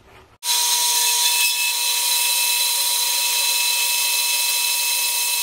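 Power tool switched on, starting suddenly about half a second in, then running at a steady, even pitch with a strong whine over a hiss, as it is used to cut the head off a 3/8-16 steel bolt.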